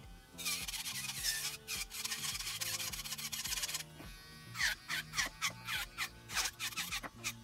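Electric nail drill bit grinding and filing acrylic nails, a rough rasping that comes and goes in short passes and drops out for a moment about halfway through. Background music with a low bass line plays underneath.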